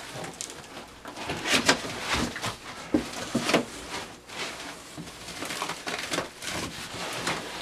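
A cardboard shipping box and the plastic-wrapped items inside it being handled by hand: irregular rustling and scraping with a few light knocks.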